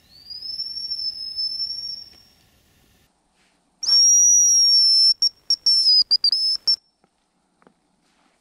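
High, thin hazel grouse call whistles: a fainter one that rises and then holds for about two seconds, then after a pause a much louder one from a hazel grouse lure blown close by, broken into several short pieces with a wavering end in imitation of the bird's trill.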